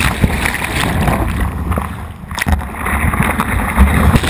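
Surf washing over and around a GoPro at the water line: a churning, gurgling wash of waves with a heavy low rumble of water and wind buffeting the camera, dipping briefly about two seconds in before building again.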